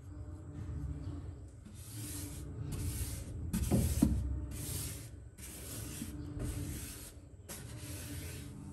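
Paintbrush bristles swept across the flat panel of a white laminated bookshelf, about seven short swishing strokes roughly one a second, starting about two seconds in. A brief squeak sounds around four seconds in.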